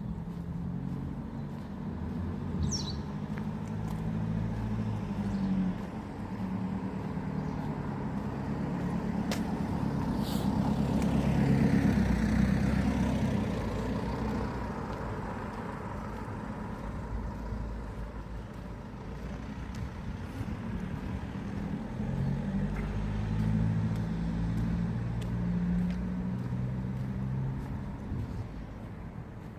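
A motor vehicle's engine is heard approaching and passing, growing louder to a peak about twelve seconds in and then fading, with engine hum coming up again later on. A bird chirps briefly near the start.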